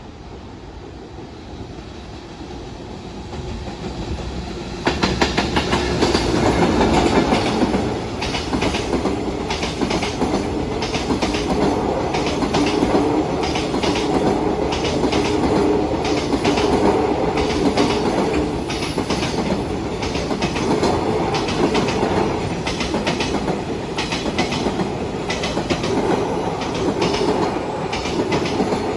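Container freight train hauled by a JR Freight EF210 electric locomotive passing at speed. It arrives with a sudden rise about five seconds in, then a long run of rapid clickety-clack as the wagons' wheels cross rail joints.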